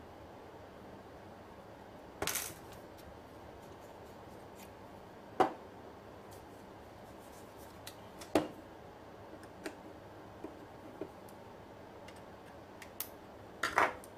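Walther P22 .22 LR pistol being taken apart by hand: a few sharp metal clicks and clacks a few seconds apart, with fainter ticks between them.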